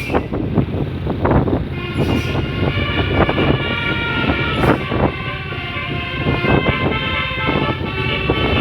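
Container truck's telolet 'basuri' musical air horn playing a tune from about two seconds in, several notes sounding together and stepping in pitch, over the truck's engine and road noise.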